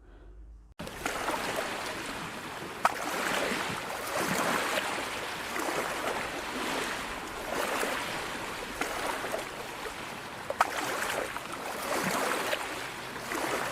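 Water washing and lapping, like waves on a shore. It starts suddenly about a second in and swells and ebbs every couple of seconds, with a few sharp clicks.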